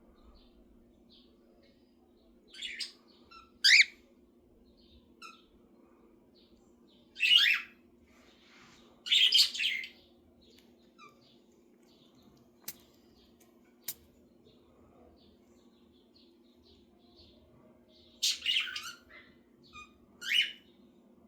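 Pet talking parrot giving short bursts of chirps and squawks, about seven in all with a long gap in the middle. Two sharp clicks fall in the gap, over a steady low hum.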